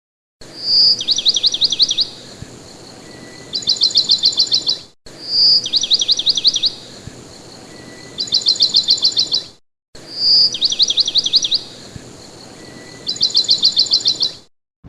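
A songbird singing the same phrase three times. Each phrase is a short high whistle, a trill of quick falling notes, a pause, then a faster trill. The three are identical and each ends with a brief break, so the clip is looped.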